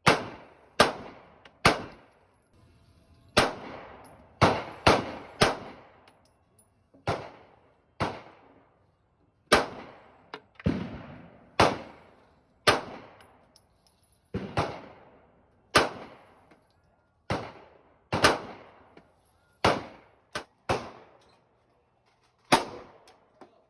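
Gunshots at an indoor shooting range: about twenty sharp reports fired at uneven intervals, some in quick pairs and triplets, each followed by a short echoing decay.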